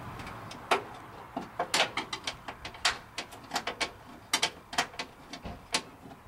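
A hand tool working at the door-jamb switch of a 1985 Chevy K10 truck: a run of sharp, irregular clicks, about four a second, starting just under a second in.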